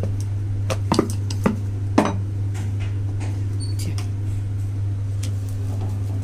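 Hands working rolled dough on a ceramic plate: three sharp clicks about one, one and a half and two seconds in, then fainter taps, over a steady low hum.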